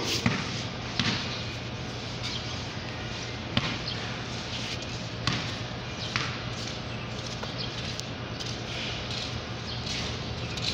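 Basketball bouncing on a concrete floor, irregular thumps a second or more apart, over a steady low hum.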